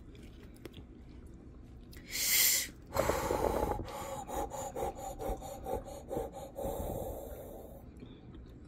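A person breathing and sniffing hard while eating very spicy food: a sharp hissing intake of breath about two seconds in, then several seconds of breaths and sniffs with small clicking mouth noises, fading near the end. It is a reaction to the chilli heat, which has the eater's nose running.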